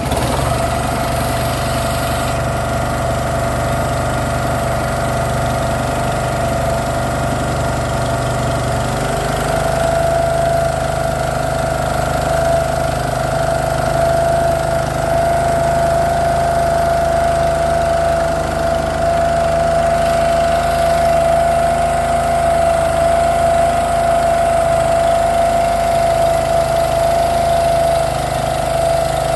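Motorboat engine running steadily: an even mechanical hum with a steady tone that grows louder about a third of the way in.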